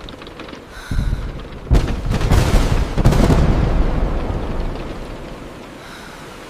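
Thunder: a low rumble begins about a second in, a sharp crack follows, and loud rumbling rolls on for a couple of seconds before fading. Steady rain runs underneath.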